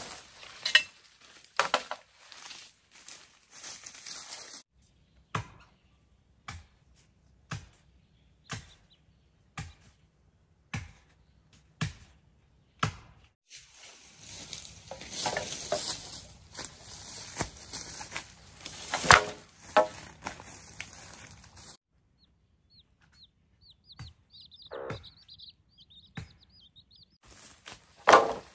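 Green bamboo stems being chopped, sharp cracks about once a second at first, then louder blows among rustling of bamboo poles and dry leaves. In a quieter stretch near the end a bird twitters faintly.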